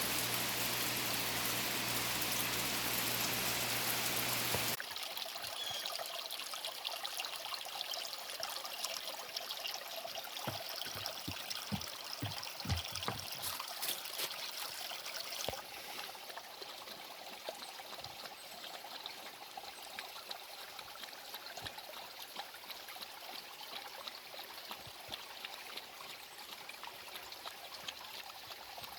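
Rainwater pouring and trickling off a roof during a downpour. A heavier, even rush stops abruptly about five seconds in, leaving a quieter run of trickling and dripping that slowly fades.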